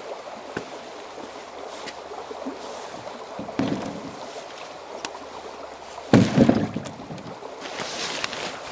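Camping gear being loaded into a canoe: nylon dry bags rustling and footsteps on rock, with two louder bursts of knocking as bags go into the hull, about three and a half and six seconds in, the second one the louder.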